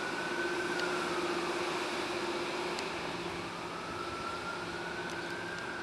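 Amtrak Northeast Regional train approaching, a steady rumbling hum with a constant low drone. Over it a high tone slowly rises and falls back, twice.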